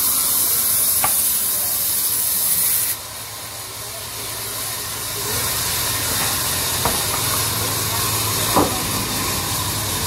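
Sawmill band saw cutting a timber plank: a loud, high hiss that stops abruptly about three seconds in, after which the saw runs on with a low hum. Wood knocks sharply a few times.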